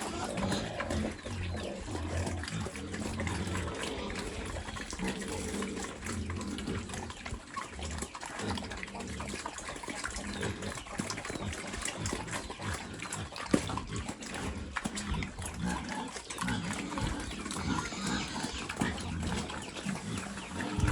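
Pigs eating wet vegetable-and-rice feed: continuous wet chewing and slurping with low grunts, and one sharp knock about halfway through.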